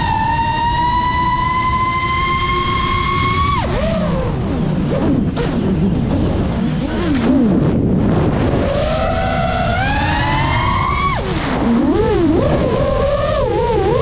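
FPV racing quadcopter's brushless motors whining over a rushing noise. The pitch climbs steadily under throttle, drops abruptly about four seconds in and wavers low as the throttle is chopped, then climbs again. It drops once more about eleven seconds in, wavers, and rises again near the end.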